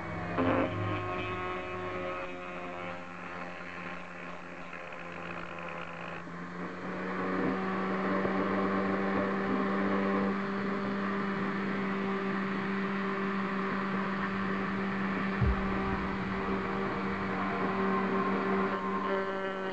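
Small corded rotary tool (mini drill) with a cutting disc running with a steady whine, cutting into a model car body. The cutting noise grows louder from about seven seconds in, and the motor's pitch shifts briefly just after the start and again near the end.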